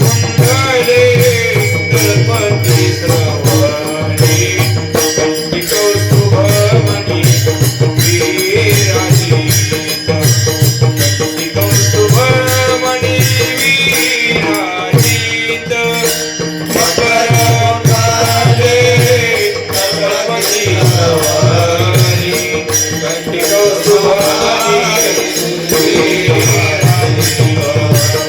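Varkari bhajan: a male voice singing a traditional devotional melody, accompanied by steady rhythmic pakhawaj (mridang) drumming with deep bass strokes.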